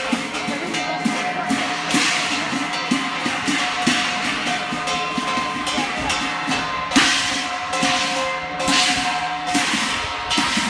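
Live Chinese percussion playing for a kei lun (qilin) dance: a drum beaten in a fast steady rhythm with repeated cymbal crashes ringing over it.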